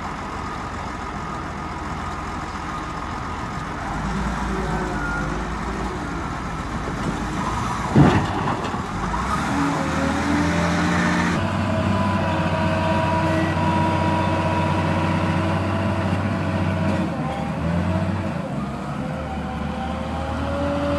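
Caterpillar 950F wheel loader's six-cylinder diesel engine running and revving up and down under load as it lifts and dumps a bucket of soil into a dump truck. A single sharp bang about eight seconds in.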